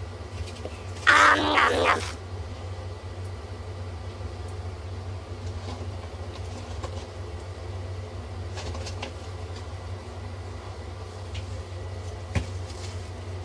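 A brief, loud animal-like call, an added comic sound effect, about a second in, over a steady low hum. Faint scattered clicks follow.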